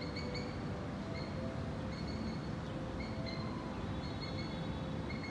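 Birds chirping in short, repeated high notes over a steady low rumble from the distant city.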